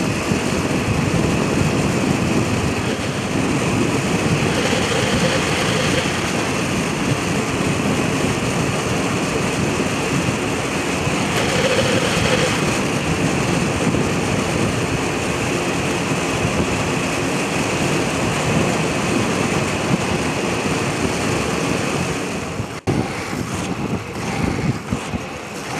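Inline skate wheels rolling on asphalt with wind rushing over the microphone: a steady, dense rushing noise. Near the end it breaks off abruptly and turns quieter and choppier.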